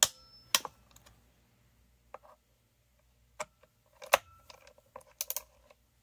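Metal hand tools clinking and knocking against the chainsaw's metal parts: about eight sharp, separate knocks, some ringing briefly, with a quick cluster of three near the end.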